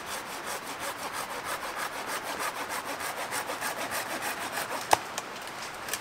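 Hand saw cutting dead standing conifer wood in quick, even back-and-forth strokes. The sawing stops about five seconds in, followed by a single sharp crack.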